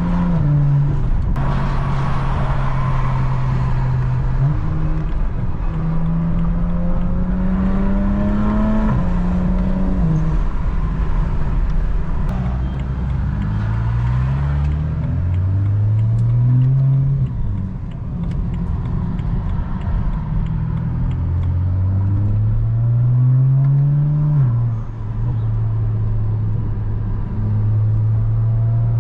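A BMW 335is's twin-turbo straight-six engine pulling through the gears while driving. Its pitch climbs and then drops back at each shift, three times, around 5–9 s, 13–17 s and 21–25 s.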